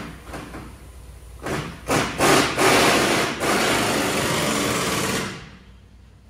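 A power tool running in a few short bursts, then steadily for about three seconds before it stops.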